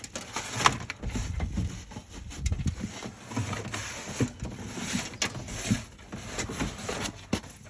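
Irregular handling noises: rustling, small knocks and clicks as parts and wiring are handled inside a stripped-out car interior.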